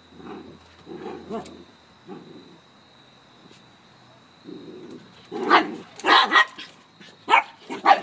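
Two small dogs, a soft-coated wheaten terrier puppy and a small long-haired dog, play tug over a cloth. Low play growls come in short spells, then about five loud, sharp barks in the second half.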